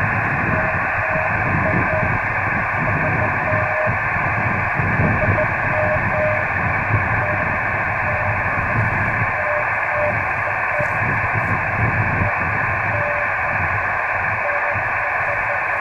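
Receiver hiss from a 10 GHz microwave ham radio receiver's speaker, with a faint Morse code (CW) tone keying dots and dashes through the noise.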